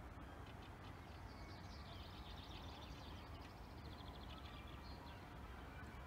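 A bird singing faintly: a run of quick, high chirps from about a second and a half in until near the end, over a low steady rumble.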